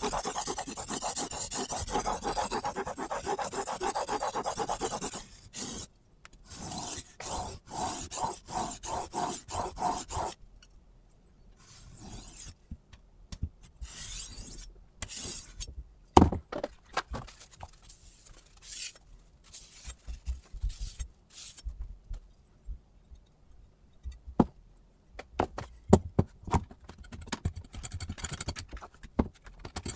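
Kitchen knife blade scraping back and forth across a sharpening stone, held at a fixed angle by a Hapstone T1 angle guide that slides on the table: a rapid run of strokes for about five seconds, then a second run after a short pause. Later come sparse scrapes and a few sharp knocks and clicks as the knife, guide and stone are handled.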